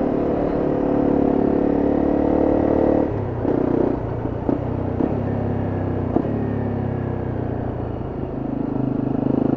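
Honda CRF250M's single-cylinder engine running under load while riding. About three seconds in, the throttle is eased off and the engine runs lower and quieter for a few seconds with a few short clicks. Near the end it pulls harder again.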